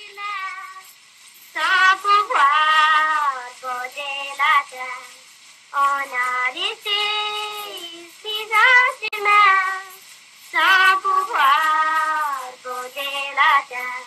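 A high voice singing a melody without accompaniment, in phrases of one to two seconds separated by short breaks, the pitch sliding between notes.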